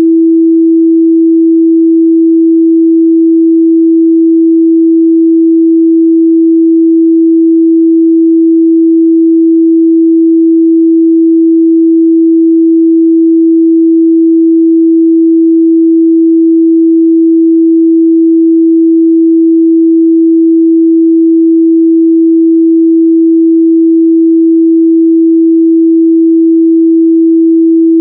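Continuous 328 Hz sine-wave test tone, a single pure steady pitch at constant loudness.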